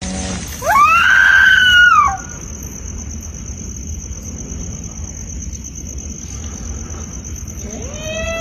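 A loud, long wailing cry that rises, holds and then falls away, lasting about a second and a half. A second cry begins to rise near the end. A steady, high, pulsing whine and a low rumble run underneath.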